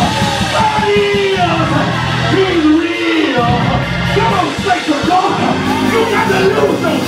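A preacher's voice through a microphone, yelled and sung in long gliding notes, over loud church band music with keyboard.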